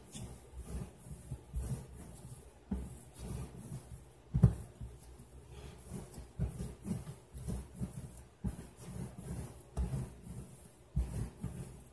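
Yeast dough for donuts being kneaded by hand on a granite countertop: a steady rhythm of soft dull thuds and rubbing as it is pressed and folded, with one sharper knock about four and a half seconds in.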